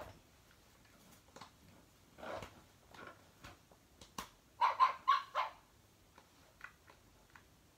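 Battat schnoodle plush puppy toy playing its recorded barking: a quick run of four small yaps about five seconds in, with a softer yip earlier and faint clicks of handling.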